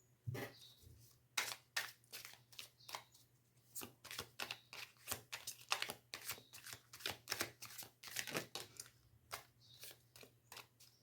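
Tarot cards being shuffled by hand: a quick, irregular run of soft card clicks and flicks.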